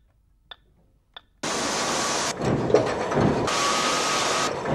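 A few faint short clicks, then, about a second and a half in, loud industrial machinery starts abruptly: a rushing mechanical noise that shifts in character every second or so, with a faint steady high tone partway through.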